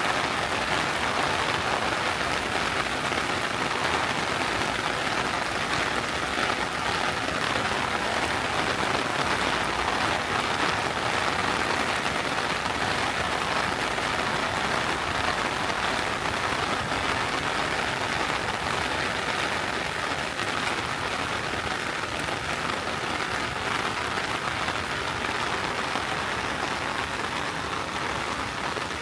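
Steady summer rain falling, an even hiss that holds at the same level throughout.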